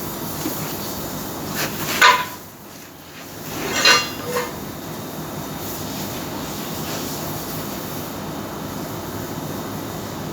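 Two loud metallic knocks with ringing, about two seconds apart, the second followed by a lighter one, over a steady background noise.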